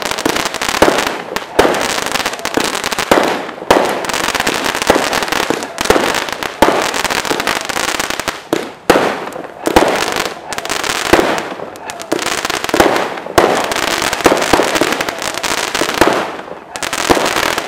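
K&H Wolverine multi-shot fireworks cake firing a rapid string of shells, each launch pop followed by a burst, about one to two a second and overlapping one another.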